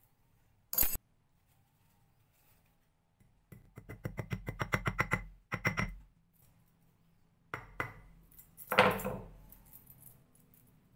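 Small hammer striking a riveted chainmail ring on a steel block, setting its rivet. There is one sharp strike about a second in, then a quick run of light taps, about nine a second, for nearly two seconds. A few separate strikes follow, the loudest near the end with a short metallic ring.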